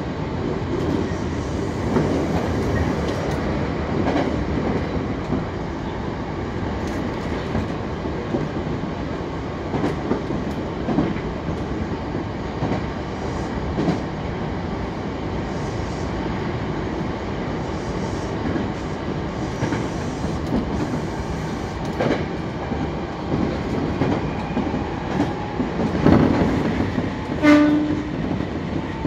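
Hankyu Kobe Line limited express running at speed, heard from the driver's cab: a steady rumble of wheels on rail with repeated rail-joint clacks. Near the end the train's horn gives one short blast.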